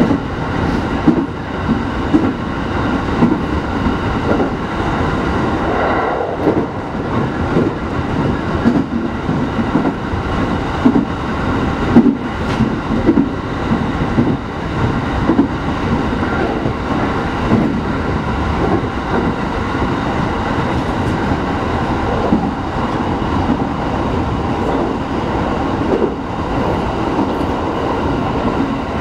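Electric commuter train running at speed, heard from inside the carriage: a steady rumble of wheels on rail, with sharp clacks now and then as the wheels pass over rail joints.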